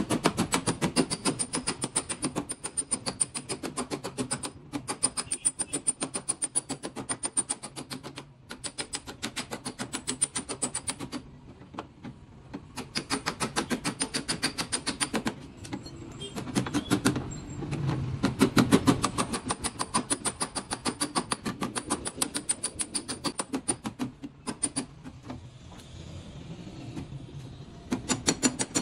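Knurled-face body hammer tapping rapidly on a car's sheet-metal quarter panel, several sharp ringing taps a second, to work out a dent. The tapping comes in runs with short pauses and thins out for a few seconds near the end before picking up again.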